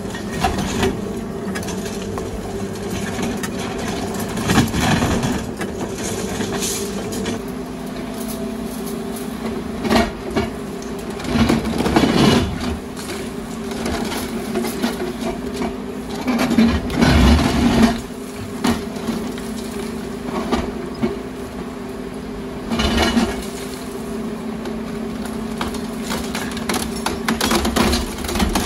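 Menzi Muck M545x walking excavator's diesel engine running steadily under hydraulic load, with irregular loud cracking and crunching of reinforced concrete as its demolition grapple, and later its hydraulic hammer, break up the slabs.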